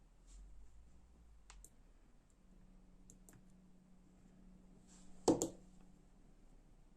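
Small sharp clicks and taps of folding-knife parts and tools being handled. There are a few faint clicks early on and one loud double click about five seconds in.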